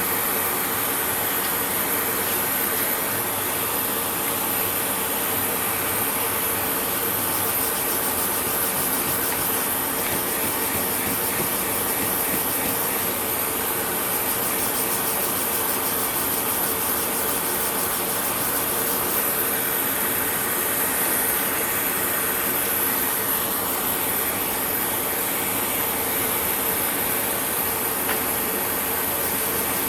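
Continuous, steady sanding noise from the underside of a chromatic harmonica slider being sanded to fit the harmonica's mouthpiece.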